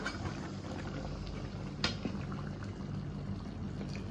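Thick braising sauce with crucian carp and tofu simmering in a wok: a steady bubbling over a low hum, with one sharp click about two seconds in.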